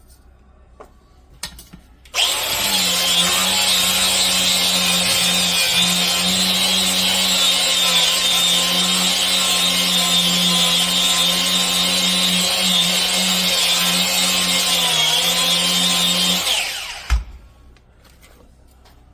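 Battery grinder with a polishing mop and polish running steadily as it buffs scuffed stainless-steel window trim, with a steady motor hum under the hiss of the mop on the metal. It starts about two seconds in, runs evenly, winds down near the end, and a single knock follows as it stops.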